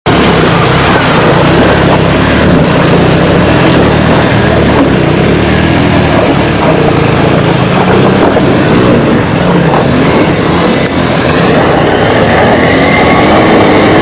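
Off-road motorcycle engines running and revving, their pitch rising and falling a few times, over a loud steady rushing noise.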